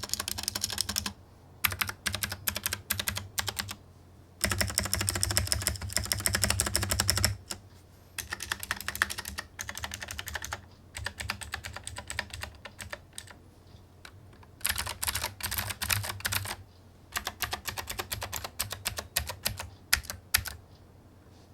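Typing on a KC84 75% hot-swap mechanical keyboard, fully assembled, in bursts of rapid keystrokes a few seconds long with short pauses between them.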